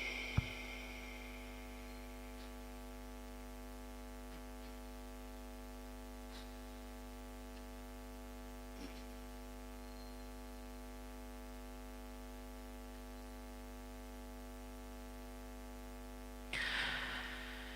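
Steady electrical mains hum from an amplified sound system with no voice on it. There is a sharp click just after the start and a brief faint noise near the end.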